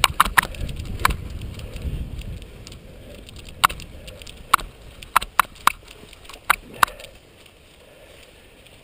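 Cyclocross bike ridden over bumpy dirt: a low rumble of tyres on rough ground that fades after about two seconds, then scattered sharp clicks and rattles from the bike as it hits bumps.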